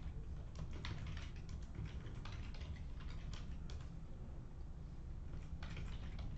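Typing on a computer keyboard: quick, irregular keystrokes, with a pause of about a second after the middle.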